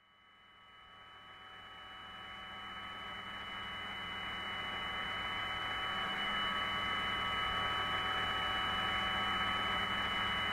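Steady hiss and electrical hum of the Apollo 10 onboard voice recording, with a few thin, steady high tones, fading in over the first several seconds and then holding steady.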